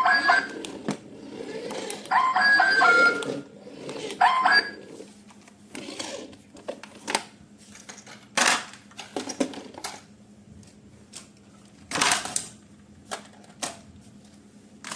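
Three short bursts of an electronic tune, stepping between a few high tones, in the first four seconds or so. Then scattered sharp clicks and knocks of hard plastic being handled, the loudest about eight and a half and twelve seconds in.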